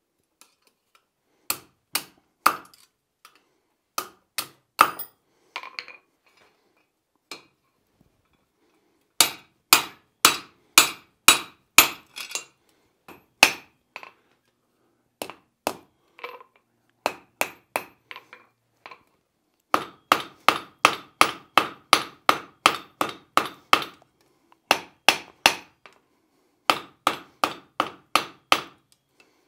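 Blacksmith's hand hammer striking hot iron on a steel anvil, each blow ringing briefly. The blows come in runs with short pauses, the fastest about three a second in the second half, as a hinge strap's finial end is drawn and shaped.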